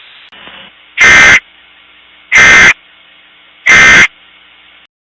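Emergency Alert System end-of-message data bursts: three short, harsh digital screeches, evenly spaced about a second and a half apart, marking the end of the alert. A faint steady hiss runs underneath.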